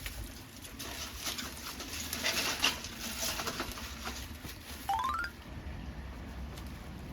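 Dry wood crackling and popping in a homemade secondary-combustion wood stove, a quick run of snaps and rustles in the first half. About five seconds in comes one short rising chirp.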